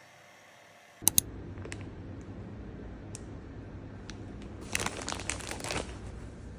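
Two sharp clicks about a second in, then a plastic food packet crinkling as it is handled, loudest for about a second near the end.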